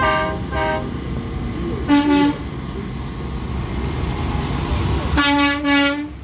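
Tractor-trailer horns honking as the haulers pass: two quick toots at the start, a short blast about two seconds in, and a longer blast about five seconds in. A steady low rumble of the passing diesel trucks runs underneath.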